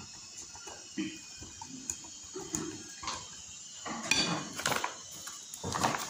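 Hand rubbing and mixing semolina in a large glass bowl, with soft gritty rustling. There are louder knocks and clinks against the glass about four seconds in and again just before the end.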